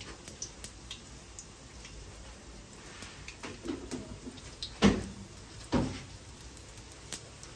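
Cumin and mustard seeds heating in a little oil in an aluminium pot: a faint sizzle with scattered pops as the mustard seeds begin to crackle, the two loudest pops about five and six seconds in.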